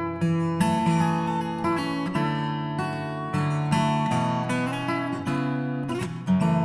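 Background music: acoustic guitar strummed in steady chords, changing about once a second.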